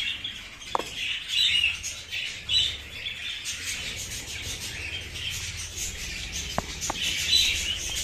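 A flock of budgerigars chattering, a steady tangle of many short high chirps with a few sharper single notes.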